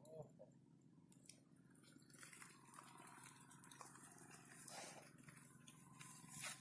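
Near silence, with faint rustling and a few light clicks from about two seconds in.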